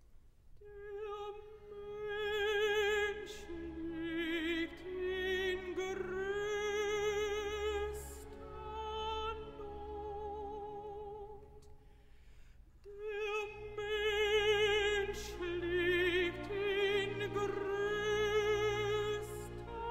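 Background music: an operatic voice singing long, wavering notes with strong vibrato over classical accompaniment, dropping away briefly about two-thirds of the way through before coming back in.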